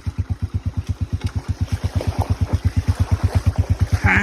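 Small motorcycle engine running with an even, rapid exhaust beat of about ten pulses a second, growing a little louder. It is being run in gear after a wash in a stream, to check whether it still picks up speed.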